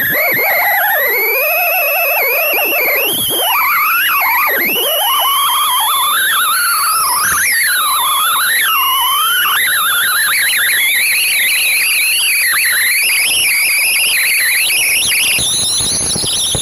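Cessna 172 pneumatic stall warning horn wailing, its pitch wavering up and down, the sign that the wing is near the stall. It cuts off suddenly near the end.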